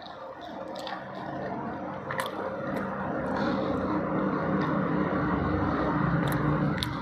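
A motor vehicle's engine running, swelling in loudness from about two seconds in and dropping off near the end. Small wet clicks and smacks from eating by hand, fingers picking at food and being licked, sound through it.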